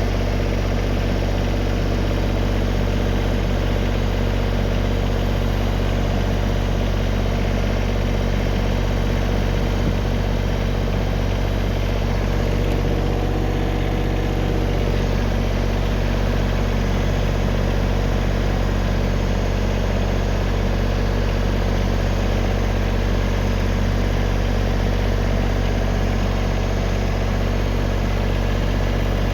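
Tractor engine running steadily at a constant speed, with no revving.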